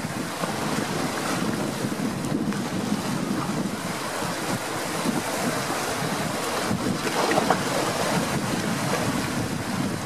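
Sea waves breaking and washing over shoreline rocks in a continuous surging hiss, with one louder splash about seven seconds in.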